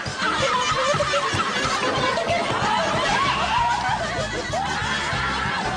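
Several people laughing together over steady low background music.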